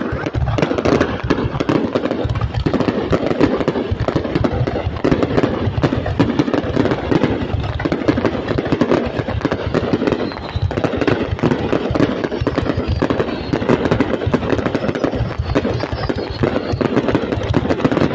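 Aerial fireworks going off in a dense, continuous crackle of rapid bangs and pops.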